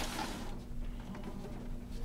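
Brief scrape and a few small knocks from an opened metal desktop computer tower case being handled and tipped over on a workbench, over a steady low hum.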